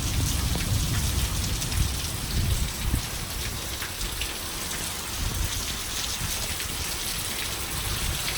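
Heavy rain falling steadily in a thunderstorm, with wind gusting on the microphone as a low rumble that is strongest near the start and then eases.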